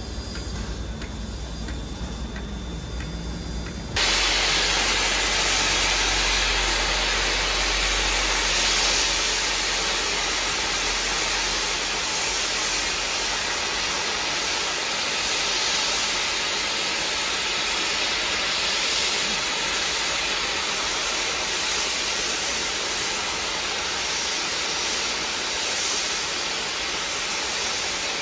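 Steam locomotive 45231, an LMS Black Five 4-6-0, letting off steam while standing: about four seconds in, a loud, steady hiss of escaping steam starts abruptly and keeps going.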